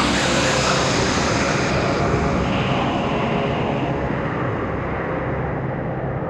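Aircraft passing by, a loud steady rushing engine noise whose hiss gradually fades as it moves away.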